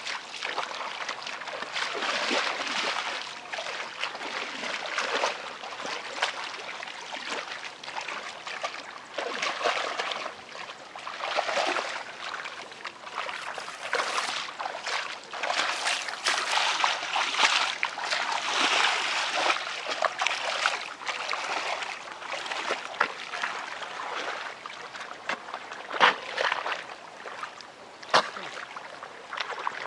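Hands and feet sloshing and splashing in shallow muddy paddy water while groping for fish in the mud, an uneven, continual churning with a couple of sharper slaps near the end.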